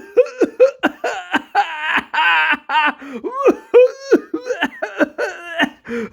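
A man coughing and laughing in a long run of short, pitched, hacking bursts, several a second.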